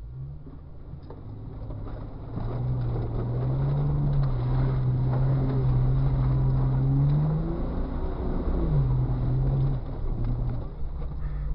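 Jeep Cherokee XJ's engine revving under load, heard from inside the cabin, as it drives through a deep mud puddle, with water splashing around it. The engine note climbs about two seconds in, holds, dips briefly near eight seconds and picks up again.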